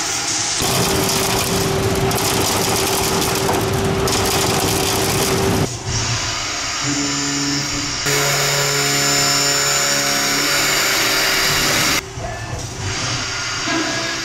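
Mazak HQR-250MSY CNC mill-turn machine cutting metal: a steady hiss of cutting and coolant with a steady machine whine. The sound changes abruptly several times, about six, eight and twelve seconds in.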